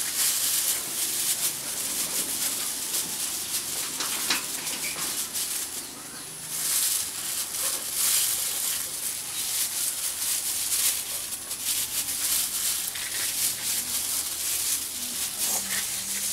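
Rural outdoor ambience: a steady high hiss with faint animal calls, dipping briefly about six seconds in.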